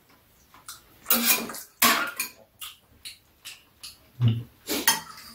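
Spoons and chopsticks clinking and scraping against bowls during a meal, in a few short separate bursts, with eating sounds.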